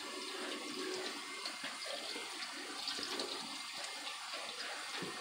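Kitchen tap running onto a cloth baseball cap held in a stainless-steel sink, a steady stream of water splashing through the fabric as the soap is rinsed out.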